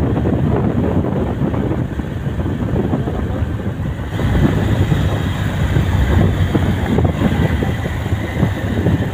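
Wind buffeting the microphone on a moving motorcycle, over the low rumble of the engine and tyres on the road; it grows a little louder about four seconds in.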